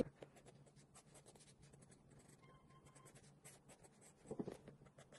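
Faint scratching of a pencil drawing lines on sketchbook paper, in many short strokes, with a brief louder sound about four seconds in.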